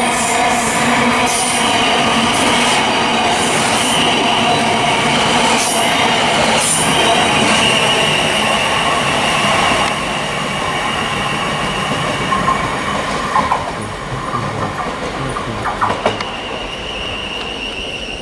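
Class 700 electric multiple unit running through at speed close by: a dense rumble with a steady high whine and sharp clacks from the wheels over rail joints. About ten seconds in it drops to a quieter train running over points, with a few clacks and a thin high squeal near the end.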